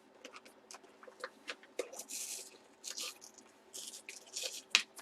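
Hands working at a football helmet, trying to fit its loose interior padding back in: scattered small clicks and brief rustles, with one sharper click near the end.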